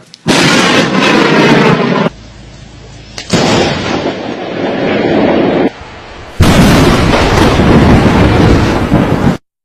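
Three close lightning strikes in quick succession, each a sudden, very loud thunderclap that starts with a sharp crack and carries on as a rumble before cutting off abruptly. The second comes about three seconds in and the third about six seconds in.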